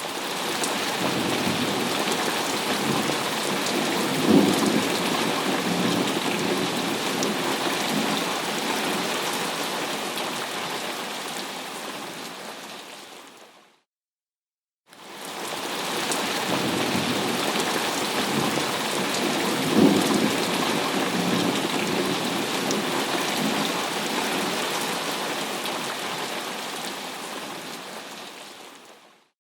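Steady heavy rain with rolling thunder rumbles, and a sharper thunderclap about four seconds in. The same stretch of rain and thunder fades out to a second of silence midway and then plays again, thunderclap and all, before fading out near the end.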